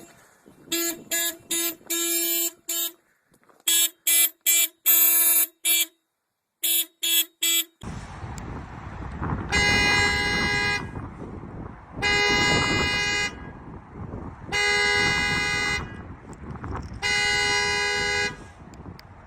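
Car panic alarm sounding the car's horn: rapid short honks in uneven groups, then, over a steady background hiss, a slower pattern of four long honks about two and a half seconds apart.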